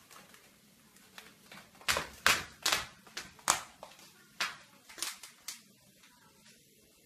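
A kitten's claws scrabbling on the plastic wrapping of a packaged washing machine as it climbs up it: a run of sharp, scratchy crackles, loudest about two to four seconds in and dying away after about five and a half seconds.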